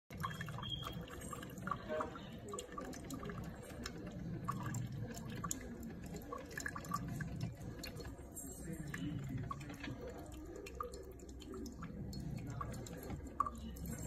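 Coffee dripping from the spout of a Galanz single-serve coffee maker into a partly filled mug, in many small irregular drips over a steady low hum.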